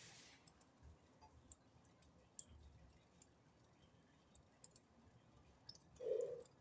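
Faint, scattered crackling of a fire burning in a fireplace. A short, louder mid-pitched sound comes near the end.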